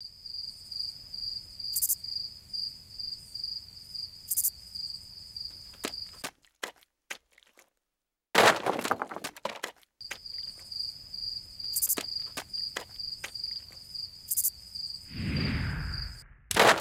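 A layered sound-effects track: a steady, rapidly pulsing high chirr with scattered sharp knocks like footsteps, broken by a short silence and then a loud noisy burst about halfway through. The chirr and knocks return, and near the end a broad rushing sound swells and fades.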